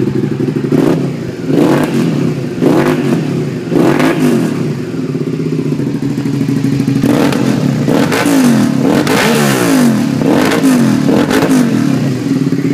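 1999 Suzuki SV650 V-twin engine through a Two Brothers aftermarket exhaust, idling and revved with quick throttle blips, the revs rising and falling back each time. A few spaced blips come first, then a quicker run of blips in the second half.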